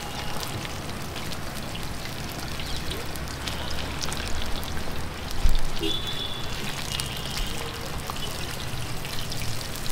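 Battered chicken tikka pieces deep-frying in a large steel karai, a steady crackling sizzle, while a steel spatula stirs them. There is one louder knock about five and a half seconds in. The oil is not yet fully hot, so the frying goes slowly.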